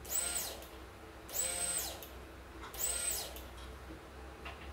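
A brand-new electric fuel pump running with no fuel, its quiet high whine swelling and fading three times about a second and a half apart. It keeps running with the ignition key off, the sign of a miswired ignition signal to its relay.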